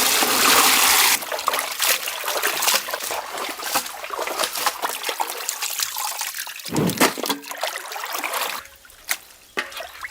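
Water pouring, then splashing and trickling with many small splashes.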